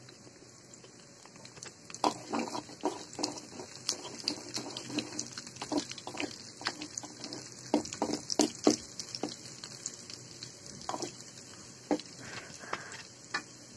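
Sliced onions frying in hot oil in a pan: a steady sizzle with irregular crackles and pops that start about two seconds in, and a spatula stirring through them.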